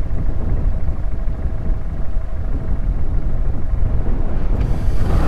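Wind rumble on a helmet microphone with the Honda Grom's small single-cylinder engine running underneath while riding.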